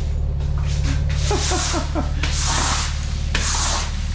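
Push broom sweeping a plastic sheet on a garage floor, in scratchy strokes about once a second, over a steady low mechanical hum.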